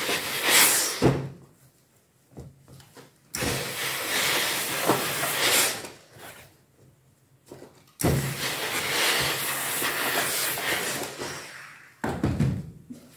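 Steam iron hissing as seams are pressed: three long blasts of steam, each cutting in suddenly and lasting a few seconds, with quiet pauses between and a shorter bit of noise near the end.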